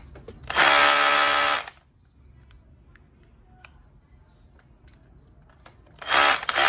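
Bosch GBH18V-26D 18 V cordless brushless rotary hammer running free with no bit fitted: a burst of about a second with a steady motor whine, then a short burst again near the end.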